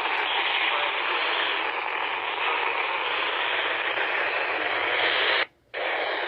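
Steady radio static hiss from a receiver. It cuts out abruptly for a moment near the end, then comes back.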